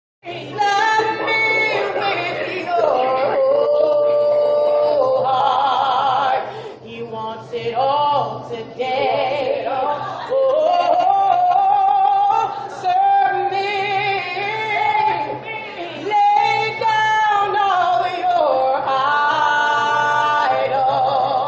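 Unaccompanied singing voices, with long held notes and a wide vibrato, over a steady low hum.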